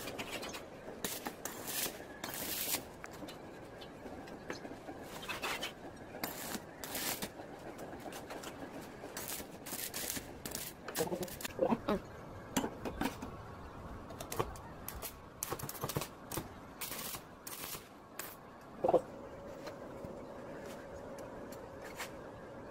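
Irregular sharp clicks and crackles of metalwork on a steel-tube trike frame, with a few short pitched sounds around the middle and a faint steady hum over the last few seconds.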